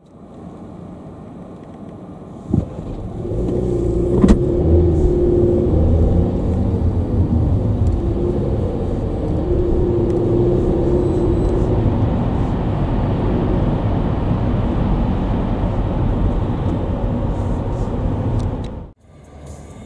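Car engine and road rumble heard from inside the cabin. It is quiet at first; after a click about two and a half seconds in, the car pulls away and the low rumble with a steady engine hum grows loud and stays even. It cuts off suddenly near the end.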